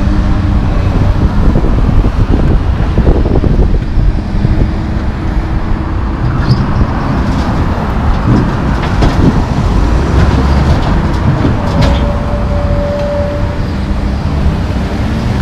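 Road traffic passing close by, heavy and continuous, over the diesel engine of a Komatsu PC220LC track excavator working beside the road. A few light knocks come midway, and a brief whine near the end.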